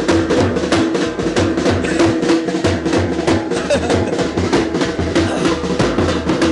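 Band drummer beating a large double-headed bass drum with a stick in a fast, steady dance rhythm, several strokes a second, with a held tone running underneath.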